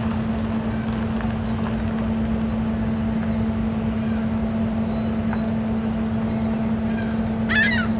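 Steady low hum of the lake freighter Algoma Transport's machinery running at the wharf, over a constant rumble. A short, loud high-pitched call cuts in near the end.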